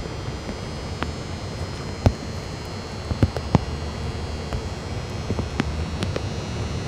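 Steady rain with single drops tapping close by at irregular moments, over a low steady hum.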